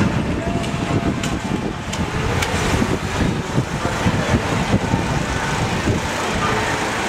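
Steady low rumbling outdoor noise, heard from a turning Ferris wheel gondola at height, with a few faint clicks about one to two and a half seconds in.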